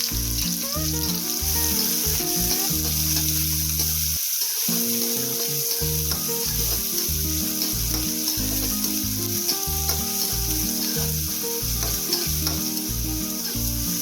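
Chopped shallots frying in hot oil with cumin seeds in a kadai, sizzling steadily as they are stirred and sautéed.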